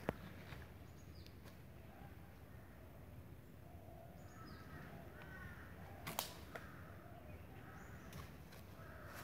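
Quiet woods with a few faint, short, falling bird chirps, a soft click at the start and a sharper snap about six seconds in.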